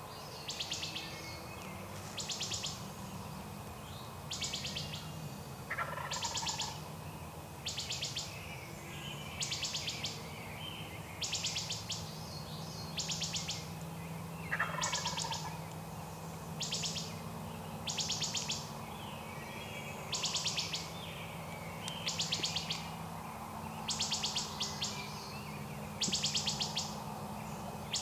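Short high trills repeating about once every one and a half seconds, each lasting about half a second. A few faint, distant turkey gobbles sound lower down among them.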